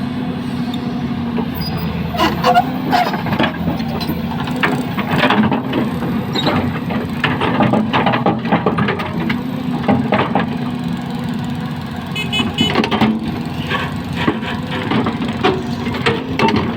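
Heavy machine's diesel engine running steadily at idle, with repeated short metallic clanks and knocks over it throughout.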